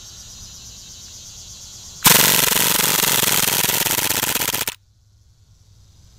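Tactical Force TF11 CO2-powered airsoft machine pistol firing one full-auto burst of about two and a half seconds, starting about two seconds in and stopping abruptly, the shots too rapid to tell apart.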